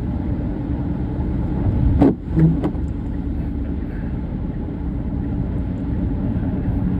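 Steady low rumble of a car's engine and tyres on a snowy, slushy road, heard from inside the cabin. About two seconds in there is a sharp thump, then a second smaller one.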